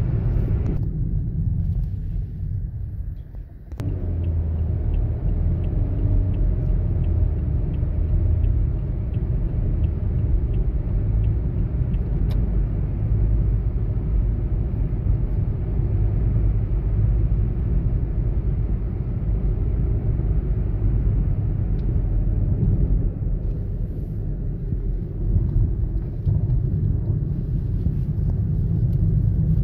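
Car driving, heard from inside the cabin: a steady low rumble of engine and tyre noise, with a short drop in level a few seconds in.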